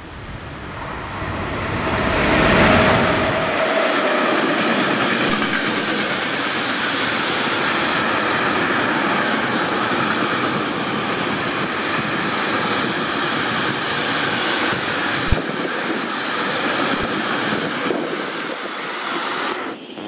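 Electric locomotive hauling a container freight train passing close by: the locomotive goes past about two and a half seconds in with a deep rumble and a held tone, then the container wagons roll by with a steady rushing rumble of wheels on rail. One sharp knock about fifteen seconds in, and the sound cuts off suddenly just before the end.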